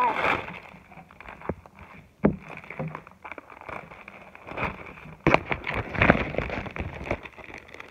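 Clear plastic wrapping crinkling and rustling as a plastic-sleeved poster book is handled and pulled open, in irregular crackles that grow louder about five seconds in.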